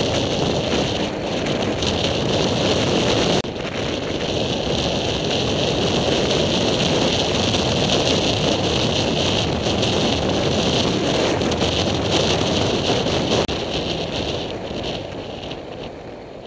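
Wind rushing over the microphone of a camera on a moving motorcycle, with the bike's riding noise underneath. The sound drops abruptly about three and a half seconds in and again about thirteen seconds in, then fades away near the end.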